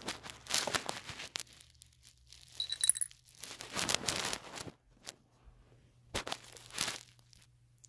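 Rustling, rubbing and light knocking of plastic dolls and toy furniture handled close to the microphone, in several short bursts, with a brief bright clink about three seconds in.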